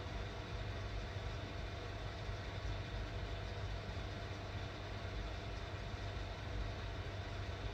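Steady low hum under constant background noise, with no distinct events.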